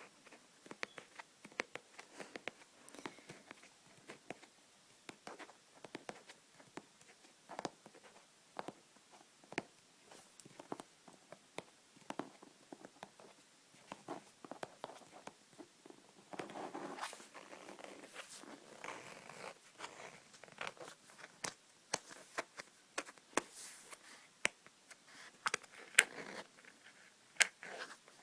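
Close-up ASMR tapping and clicking on objects: many quick, irregular taps. About halfway through, a few seconds of scratchy rustling.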